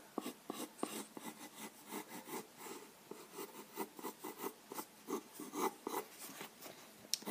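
Graphite pencil scratching on paper in quick short sketching strokes, a few a second, as fur is drawn in. A sharper tick comes near the end.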